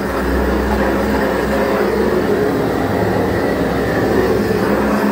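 Hand-held gas torch burning steadily with a constant rushing noise while heating a heat-shrink sleeve on a power cable joint.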